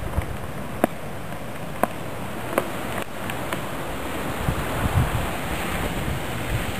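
Wind rumbling on the microphone, with a few sharp, light clicks as a knife point picks at a dry, woody oak gall.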